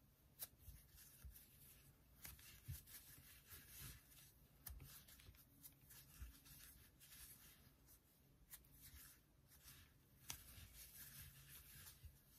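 Near silence with faint soft rubbing and scattered light clicks of a metal crochet hook working thick ribbon yarn.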